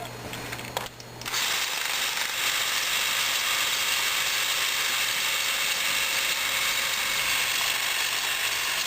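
Krasnogorsk-3 16mm film camera's spring-wound clockwork motor running steadily with film threaded, starting about a second in with an even mechanical whir and chatter of the film transport.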